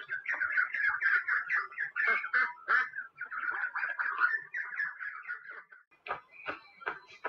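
A flock of waterfowl calling at a lake: many short, overlapping calls one after another. About six seconds in the calls thin out and a run of short sharp ticks begins.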